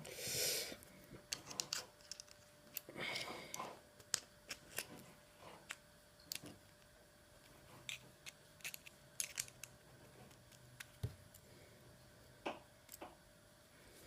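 Light metallic clicks and scrapes from handling a Euro lock cylinder while it is worked loose, with two short rasping scrapes, one at the start and one about three seconds in, among scattered small clicks.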